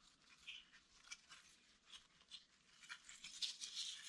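Faint, soft rustling and crackling of something being handled, getting louder about three seconds in.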